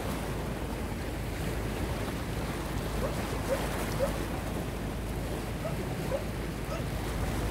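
Wind buffeting the microphone over small waves washing against a rocky shore, with a few faint short chirps.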